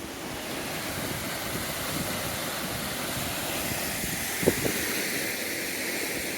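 Steady rushing noise of road traffic that swells slightly, with a brief short sound about four and a half seconds in.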